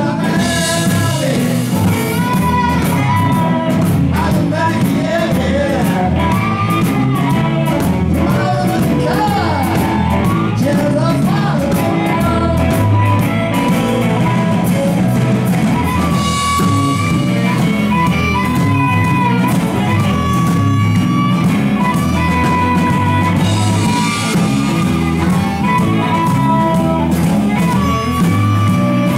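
Live band playing: a harmonica cupped against the vocal microphone leads over electric guitar, electric bass and a drum kit. The harmonica holds long notes through the second half.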